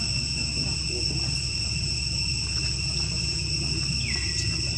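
Insects droning steadily in several unbroken high tones, over a low rumble. Near the end a second insect call slides down in pitch and then holds.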